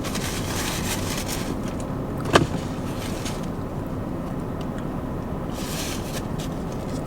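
Steady low rumble with a faint hum, with soft rustling twice and one sharp click about two and a half seconds in.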